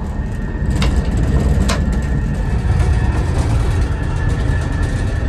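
Steady low rumble of a moving Amtrak Metroliner cab car heard from inside the car, with two sharp clicks close together about a second in.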